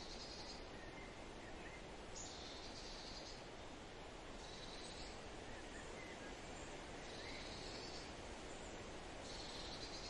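Faint outdoor nature ambience: a steady hiss with a short high trill repeating about every two and a half seconds, and a few faint chirps.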